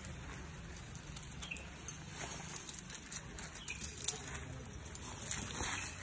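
Iron chains on a captive elephant's legs clinking irregularly as it walks, with a few sharper clinks in the second half.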